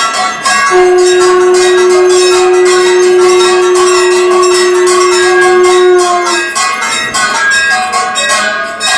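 Puja bells rung rapidly and continuously for the aarti, with many overlapping ringing strokes. About a second in, a single loud steady note starts over them and holds for about five seconds before stopping.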